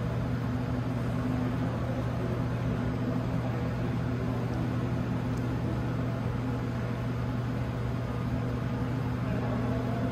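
Steady mechanical hum of an indoor hall's ventilation: an even low drone with hiss above it, unchanging throughout.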